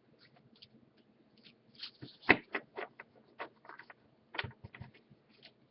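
Baseball trading cards being handled and flipped through by hand: a string of light, irregular clicks and card snaps that gets busier partway through.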